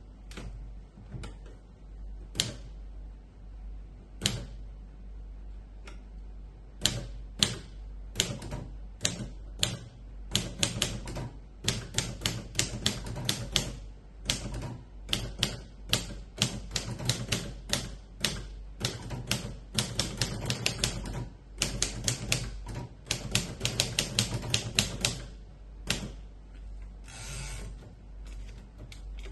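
Royal Quiet De Luxe manual portable typewriter being typed on: a few single key strikes, then fast runs of typebars clacking against the platen. A short rasping sound comes near the end.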